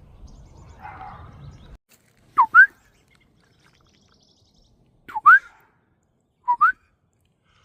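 A person whistling three times to call crows, each whistle a clean two-note slur that dips and then rises, loud and close. Before the whistles, about two seconds of rustling and handling noise.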